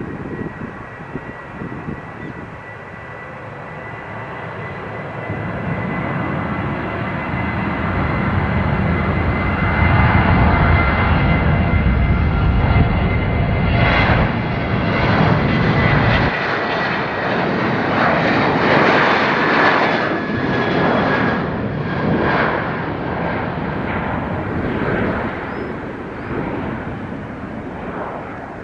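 Jet airliner engines passing close: a steady high whine over a broad roar that builds to its loudest about ten seconds in, then slowly eases off.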